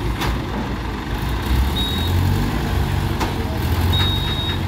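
Diesel engines of Escort Hydra mobile cranes running, with a deeper, louder engine note coming in about a second and a half in. A couple of brief clicks and a short thin high squeal are heard twice.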